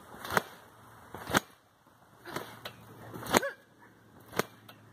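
Trampoline bouncing: the mat and springs thump each time a jumper lands, about once a second, five landings in all.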